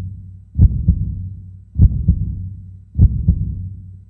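Heartbeat sound effect in an intro soundtrack: a deep double thump, like a lub-dub, about once every 1.2 seconds, three times. Each beat is followed by a low hum that fades away.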